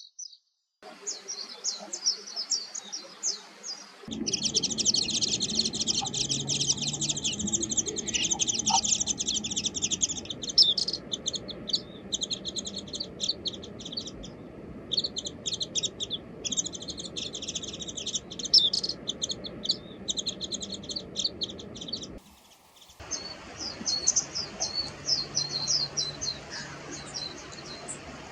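Warbling white-eyes giving fast, high twittering chirps and warbled notes, many overlapping. The birdsong changes abruptly about 4 s in and again about 22 s in, where one recording gives way to another.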